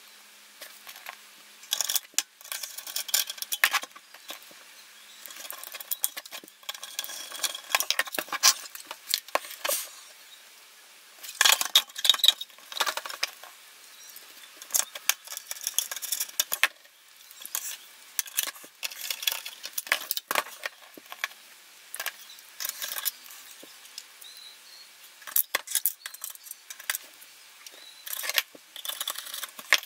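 Small hand tools clicking, tapping and scraping on the metal case and aluminium cover plate of an aircraft navigation receiver as screws and parts are fitted back together: irregular sharp metallic clicks and scratches with short pauses between them.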